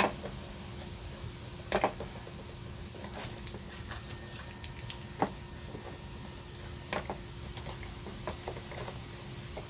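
Sparse clicks and knocks of hand work on a quad's battery terminals in a tight space, a sharp knock at the start, a double knock about two seconds in and a few more later, over a faint steady hum.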